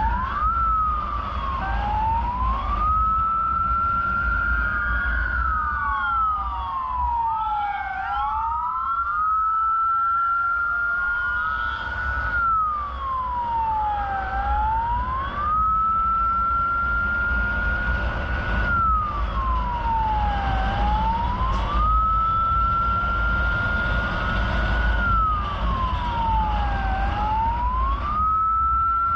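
Emergency vehicle siren on wail: a slow rise-and-fall cycle repeating about every six seconds, with a second siren's sweeps crossing it for a few seconds early on. Steady low vehicle rumble underneath.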